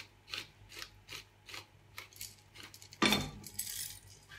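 Hand-twisted pepper mill grinding peppercorns, a steady run of ratcheting clicks about four a second. About three seconds in, a louder scraping clatter as a steel frying pan is lifted off the gas hob's grate.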